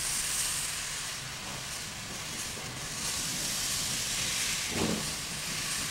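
Alco Tipo 70 steam locomotive hissing steam steadily, with a brief call near the end.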